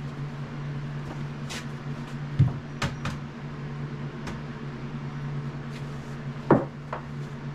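Several sharp knocks and clicks of things being handled and set down, the loudest two about two and a half and six and a half seconds in, over a steady low hum.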